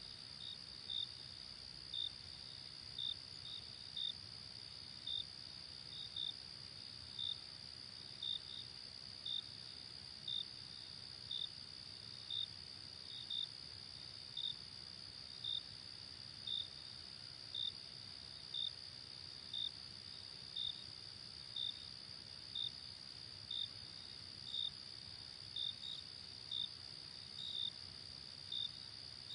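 Crickets chirping: a steady high-pitched trill, with short chirps from a nearer cricket about once a second, now and then in quick pairs.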